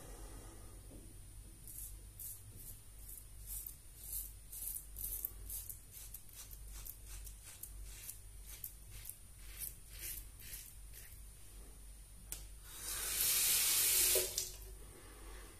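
Merkur 39C slant-bar safety razor with a Gillette 7 O'clock Super Platinum blade cutting lathered stubble in short, repeated scraping strokes. Near the end a tap runs briefly.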